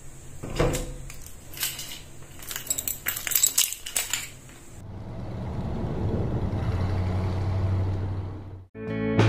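A bunch of car keys jangling and clinking as they are lifted off a metal hook, for about four seconds. Then a low, steady hum swells and fades away.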